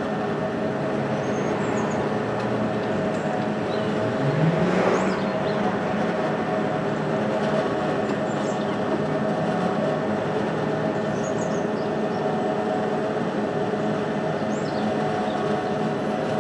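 Southeastern Electrostar electric multiple unit running through a station: a steady hum of traction equipment and wheels on rail, with a rising motor whine about four seconds in as it gathers speed.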